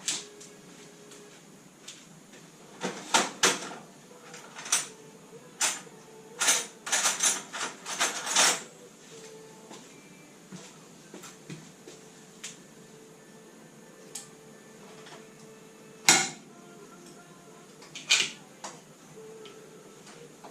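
Metal tools and engine parts clinking and clanking during work on a classic Mini's engine: a quick run of knocks from about three to eight seconds in, then single sharp knocks later on.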